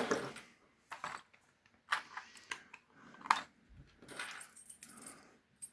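Light metallic clicks and clinks, a few scattered taps, as lockpicking tension wrenches are handled and tried in a padlock's keyway.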